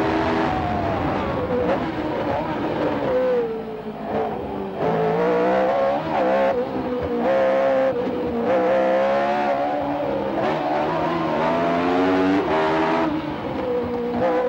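Ford Cosworth DFV V8 of a Tyrrell 008 Formula One car, heard from on board, revving hard up through the gears and dropping in pitch as it lifts off for corners, twice falling quieter for a few seconds before pulling hard again.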